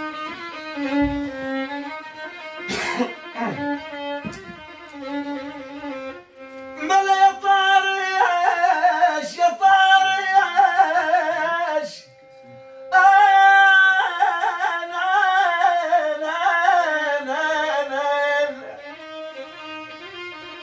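Violin playing a slow Arabic folk melody. About seven seconds in, a man's voice comes in over it with long, wavering held notes in sweihli style. The voice breaks off briefly near the middle and stops a couple of seconds before the end, while the violin carries on.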